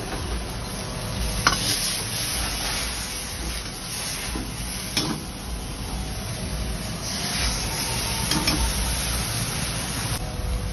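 Vegetables sizzling as they are stir-fried in a wok over a flame, with a metal ladle scraping the pan and knocking against it about three times.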